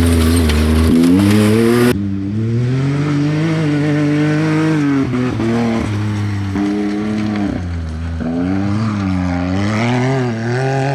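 Side-by-side UTV engine revving hard on a dirt race stage, its pitch rising and falling again and again as the throttle is worked. The sound changes abruptly about two seconds in.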